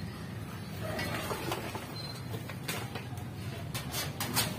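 Scattered light knocks and clatter of objects being handled, clustering in the second half, over a steady low hum.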